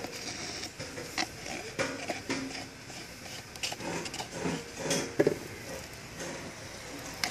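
A putty knife scraping thick epoxy and wood-flour paste out of a plastic mixing cup into a plastic bag, with irregular scrapes, light clicks of the blade against the cup and crinkling of the plastic.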